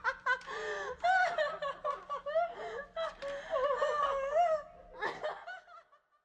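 A high-pitched voice giggling and laughing in quick bursts that swoop up and down in pitch, stopping about five and a half seconds in.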